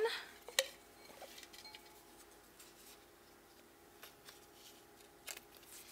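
Faint rustling of small folded paper slips picked by hand from a glass jar, with a light click about half a second in, then soft crinkles as a slip is unfolded between the fingers.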